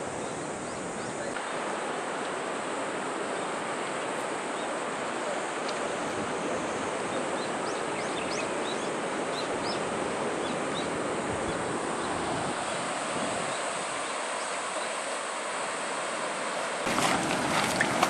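Steady rush of river water. A few faint high chirps come through in the middle. About a second before the end the sound changes abruptly to a louder rush with a few knocks.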